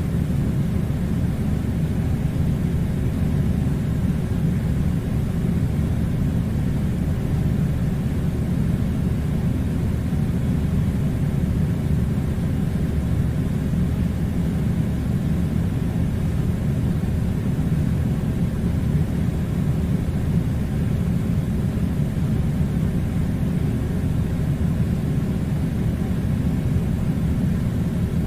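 Air conditioner running with a steady, unbroken low rumble.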